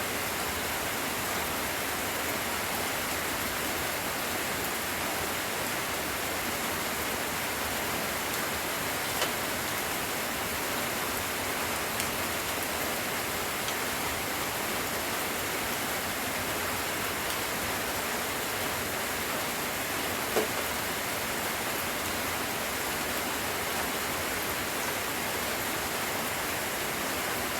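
Steady rain falling, an even hiss with a few faint taps.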